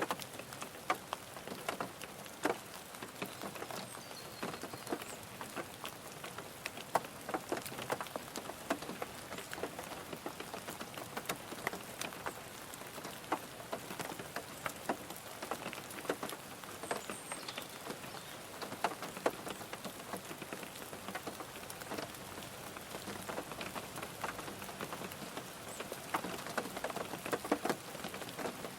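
Rain falling on a car's roof and windows, heard from inside the car: a steady patter of many separate, irregular drop hits.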